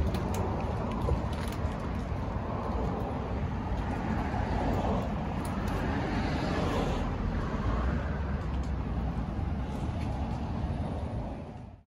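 Steady outdoor background rumble with a strong low end, cutting off suddenly near the end.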